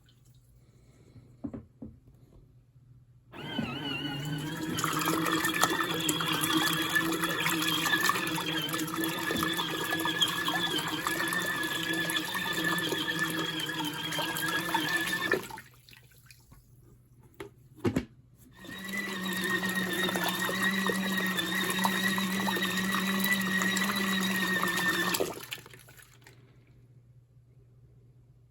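Folding mini washing machine's motor and impeller running and churning water through a wash cycle. It runs steadily for about twelve seconds, stops with a click in the pause, then runs again for about six seconds in the wash rhythm of alternating runs and pauses.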